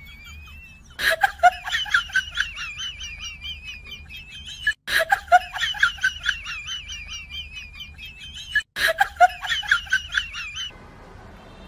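Corgi whining excitedly in a high, wavering pitch with quick pulses. It comes in three bursts that each start suddenly, about a second in, near the middle and near the end.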